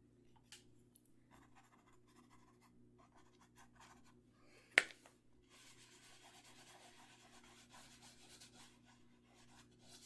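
Faint rubbing and scratching of fingers smearing paint across a stretched canvas, growing a little more steady after about five seconds. One sharp click about five seconds in.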